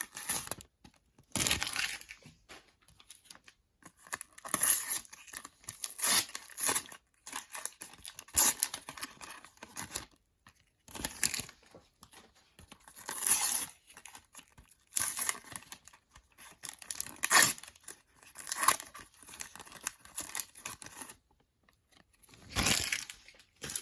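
Panini sticker packets being torn open by hand, wrappers ripping and crinkling in a dozen or so short, irregular bursts.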